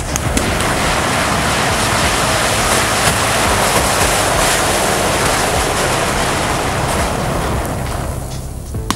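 Matchstick sculpture with lighters and sparklers inside flaring up: a loud, steady rush of flame that starts suddenly and dies down near the end.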